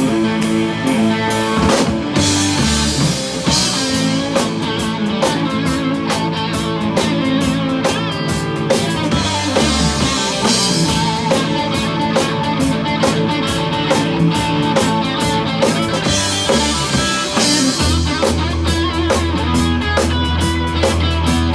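Live rock band playing an instrumental stretch with no vocals: electric guitars over bass guitar and a drum kit, with steady cymbal and drum strokes and a cymbal-heavy entry about two seconds in.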